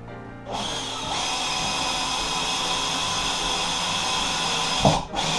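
Power drill running steadily for about four seconds, driving a screw in while a window-blind bracket is being mounted, then stopping with a sharp knock.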